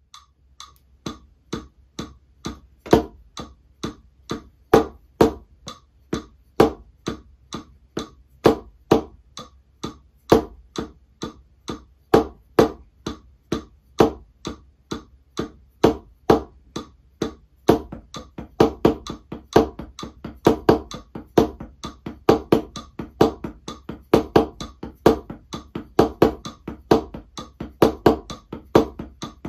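Wooden drumsticks striking a rubber drum practice pad in accented paradiddle and single-stroke patterns, with some strokes clearly louder than the rest. The strokes come in a steady pulse and double in speed about two-thirds of the way through.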